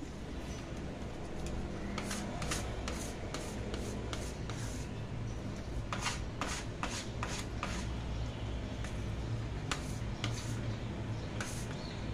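Hands kneading soft, oiled bread dough against a countertop: wet squishing and quick slaps that come in clusters, with a plastic bench scraper scraping the dough off the counter now and then. The oil is being worked into the dough.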